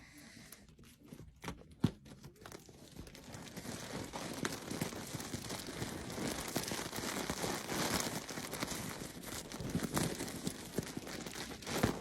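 Packaging crinkling and rustling as a parcel is torn open by hand. It is sparse at first and becomes steady from about three seconds in, with a sharp click about two seconds in and another near the end.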